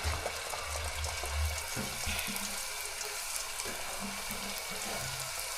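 Pieces of mandazi dough frying in hot cooking oil in a pan: a steady sizzle, with a low rumble in the first second and a half.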